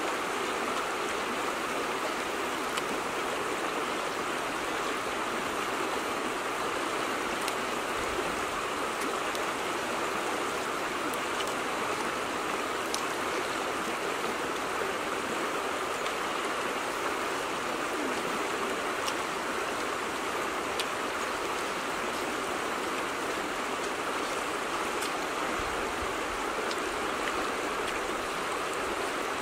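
River water rushing steadily past the rocks of the bank, a constant even rush with no break.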